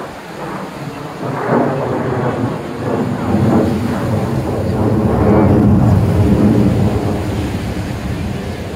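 Jet aircraft engine noise heard from the ground, a deep rolling rumble that swells about halfway through and eases slightly near the end.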